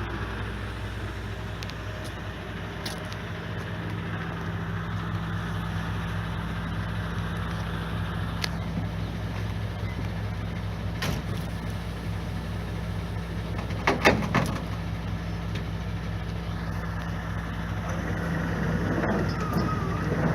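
A tipper lorry's diesel engine idles steadily, with a few sharp metallic knocks, the loudest about fourteen seconds in. The engine noise builds toward the end.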